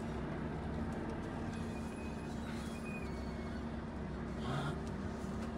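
Volvo FH timber truck's diesel engine running steadily at low revs as the truck creeps along slowly, with a few light rattles.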